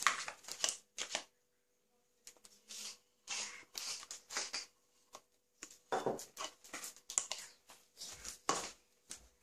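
A metal spoon scraping soft cottage cheese out of a plastic tub into a glass bowl, in short irregular scrapes and taps with a pause about a second in.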